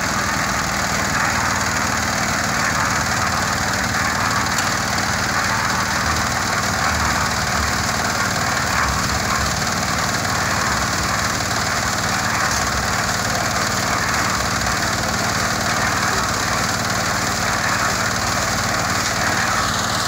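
Portable concrete mixer running steadily on its small engine, the drum turning and churning wet concrete as it is tipped to pour the batch out.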